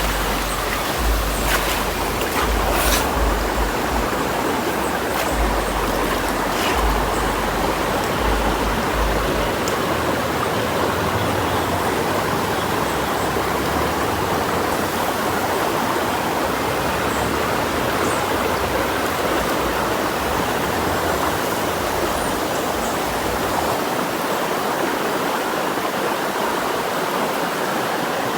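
River water rushing steadily. Low rumbles come and go through the first ten seconds, with a few faint clicks near the start.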